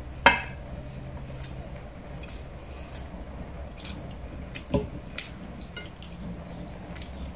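Close-up eating sounds: wet mouth clicks and smacks of chewing braised pork, with a sharp click about a quarter second in and another near five seconds. A steady low hum runs underneath.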